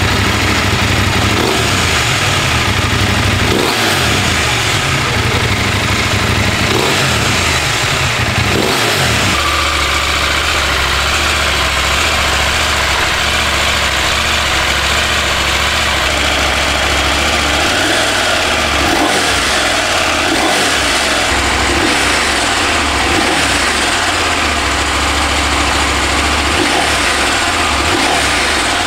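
KTM Adventure parallel-twin motorcycle engine running. For the first nine seconds it breathes through an aftermarket Black Widow slip-on exhaust, idling with short throttle blips. It then changes to the stock exhaust, a steadier, lower idle with occasional blips.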